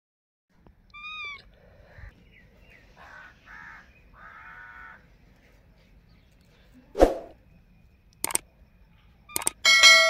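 Indian ringneck parakeets calling: one short call about a second in, then three bouts of soft chatter. A loud sharp snap comes about seven seconds in. Near the end come a few quick clicks and a ringing chime from a subscribe-button sound effect.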